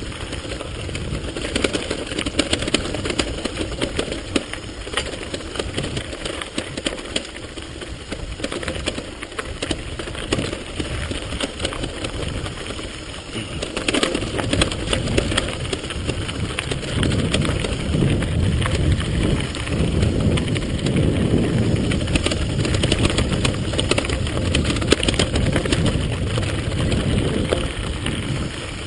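Mountain bike riding downhill over a rocky dirt trail: tyres crunching on gravel and stones, with the bike rattling and clattering over the bumps. It gets louder, with more rumble, from about 17 seconds in.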